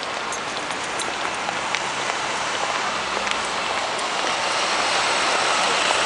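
Steady noise of busy city street traffic, tyres and engines with scattered small clicks, growing louder near the end as a truck passes close.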